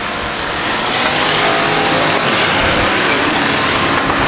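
Several street stock race cars on a dirt oval passing close by, their engines running loud and growing louder as the pack comes past.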